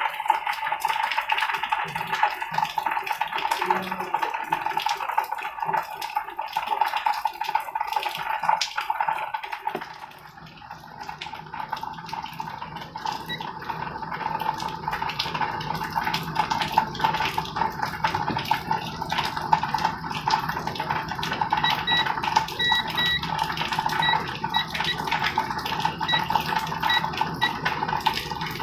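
A steady high-pitched whine with a hiss runs throughout. From about two-thirds of the way in, a digital multimeter gives short broken beeps as its test probes touch points on the TV mainboard, as in a continuity check.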